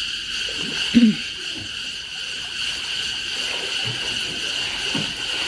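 A steady, high-pitched chorus of forest insects droning continuously. Pool water laps and splashes softly underneath as children swim, and a short voice-like cry falls in pitch about a second in.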